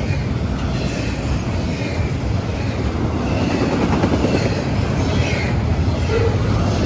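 CSX intermodal freight train rolling past, a steady rumble of wheels on rail.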